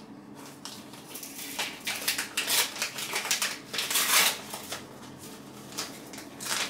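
Paper rustling and crinkling in irregular bursts as an envelope is opened by hand and a card pulled out, loudest about two and a half and four seconds in.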